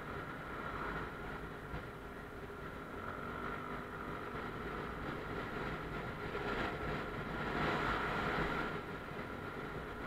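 Motorcycle riding along a road, heard from a camera mounted on the bike: engine running with wind and road noise, getting louder for a couple of seconds in the second half.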